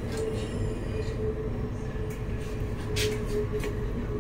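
CAF Urbos 3 tram running along the track, heard from inside the driver's cab: a steady electric whine over the low rumble of wheels on rails, with a sharp click about three seconds in.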